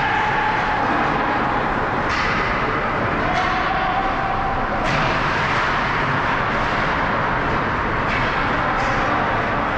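Steady noisy din of an ice hockey rink during play, with a few sudden sharp sounds scattered through it.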